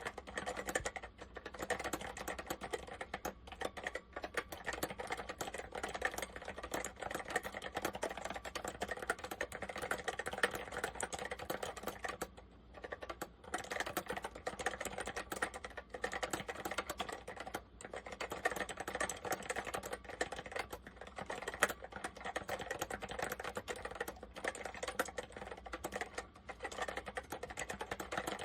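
Fast continuous typing on an Apple M0110A Macintosh Plus keyboard with Mitsumi Standard Mechanical switches, the keys clicking and clacking in a dense stream with a brief pause about twelve seconds in.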